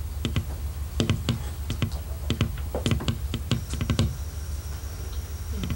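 Irregular light clicks and taps, a few a second, over a steady low hum.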